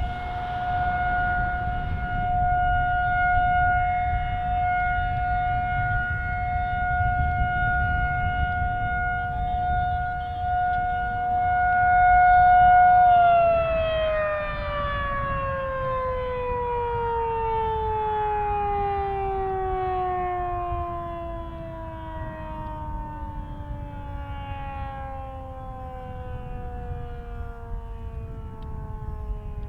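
Federal Signal 2001-SRN electromechanical siren holding a steady single tone on the Alert signal, swelling and fading in loudness every few seconds. About halfway through the tone ends and the siren winds down, its pitch sliding steadily lower.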